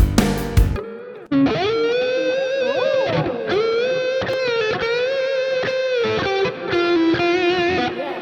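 Band music with drums breaks off just under a second in, and a distorted electric guitar plays a lead line alone: long held notes with bends and wide vibrato, dropping to a lower note near the end.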